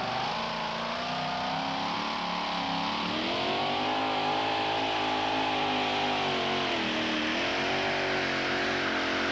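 Modified pulling tractor's engine running at full throttle under heavy load, dragging the weight-transfer sled. The engine pitch climbs about three seconds in, holds, sags briefly near seven seconds and then recovers.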